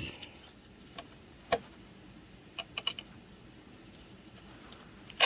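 Scattered small clicks and taps from a soldering iron tip and copper solder wick being worked against a circuit board connector's pins while desoldering bridged joints: single ticks about a second and a second and a half in, a quick run of three a little later, and a sharper click near the end.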